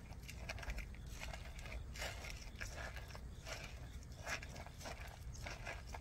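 A cat eating from a plastic bowl of cat food, with irregular short crunches, mixed with a spoon stirring and scraping the food in the bowl.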